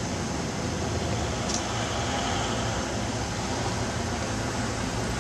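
Steady, even noise of city street traffic: buses and cars passing on a wide avenue.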